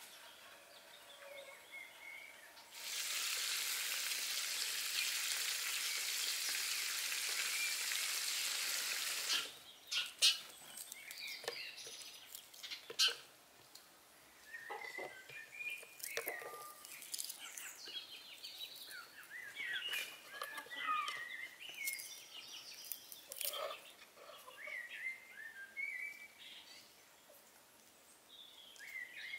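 Food frying on a hot saj griddle: a steady sizzle lasting about seven seconds that cuts off suddenly. After it, small birds chirp repeatedly, with scattered light clicks and taps from food being handled on a wooden board.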